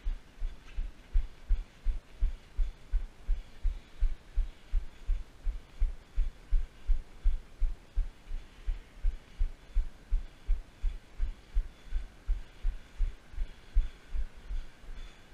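Steady low thumps, about three a second, from running footfalls jolting a body-worn action camera.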